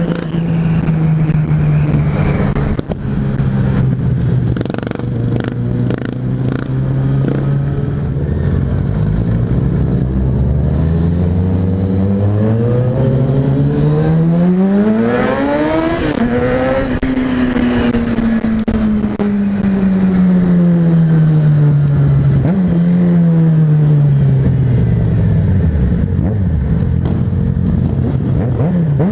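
Motorcycle engine running while riding in town: low steady running at first, then revving up to a high pitch about halfway through and winding down slowly as the bike slows, with a shorter rise and fall near the end.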